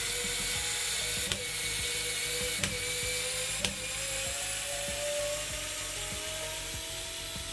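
TOPSHAK TS-ESD1 4 V cordless screwdriver running under load as it turns a 3.5 × 60 mm wood screw in a block of pine. The motor and gear whine is steady and rises slowly in pitch, and three sharp clicks come in the first four seconds.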